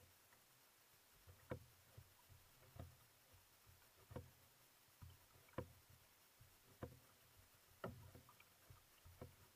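Steady single-blade paddling of an outrigger canoe: seven strokes a little over a second apart. Each stroke gives a sharp splash or knock at the catch and a low slap of water against the hull.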